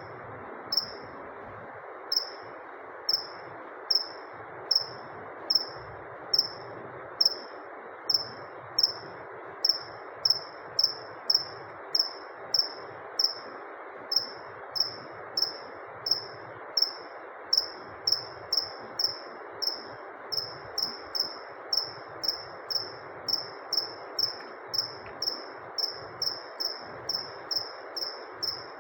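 Cricket chirping: single short high chirps repeated evenly, about one a second at first and quickening to about two a second, over a steady hiss.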